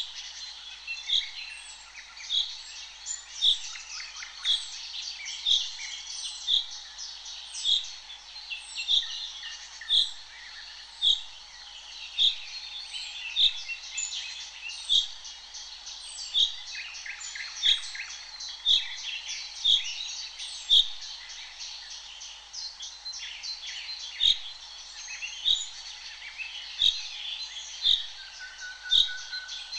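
Several wild birds singing: one repeats a short, high note about once a second while others chatter rapidly behind it.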